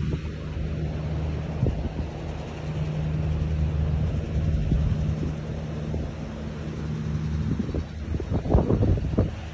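A steady low engine hum under wind buffeting the microphone, with a few louder gusts near the end.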